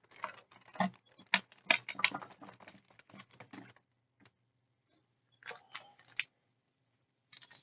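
Light clicks and small rattles of spare iPhone back plates being picked through and handled: a quick run of clicks for about four seconds, a pause, then a shorter cluster near the end.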